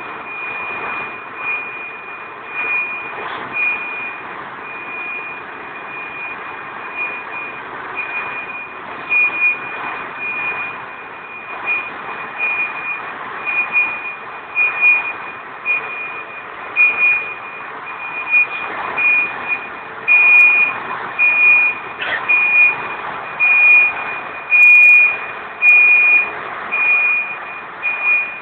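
Truck tractor unit reversing: its back-up alarm beeps steadily about once a second over the running diesel engine. The beeps grow louder in the last third as the truck comes closer.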